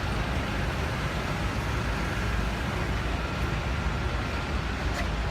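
Steady low rumble of road traffic and running car engines, with no single vehicle standing out.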